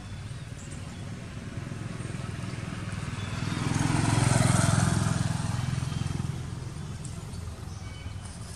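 A motor vehicle driving past on the road, growing louder to a peak about four seconds in and then fading away.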